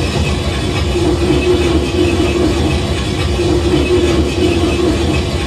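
Recorded railway noise from a passing train, taken inside a high-rise apartment beside the tracks and played back over loudspeakers at about 90 decibels: steady, loud train noise with a low drone.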